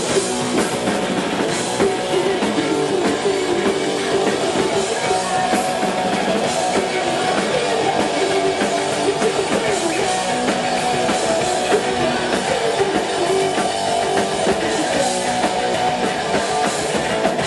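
Punk rock band playing at full volume: electric guitars, bass guitar and drum kit, continuous throughout.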